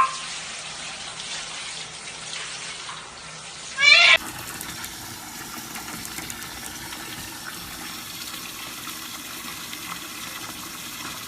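Steady rushing noise like running water, with one loud, short pitched cry about four seconds in.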